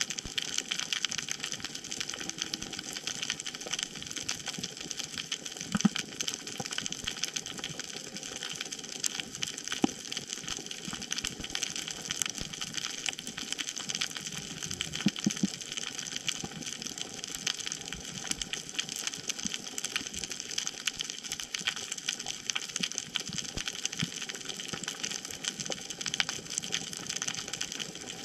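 Underwater reef ambience picked up by a camera in its housing: a steady hiss speckled with many faint clicks, and a few short low sounds about midway.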